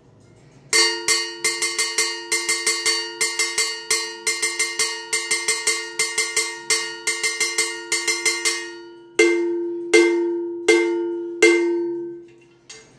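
A JCR mambo-style timbale cowbell, held in the hand and struck with a wooden stick. It plays a fast rhythmic pattern for about eight seconds, then four single, louder strikes left to ring out.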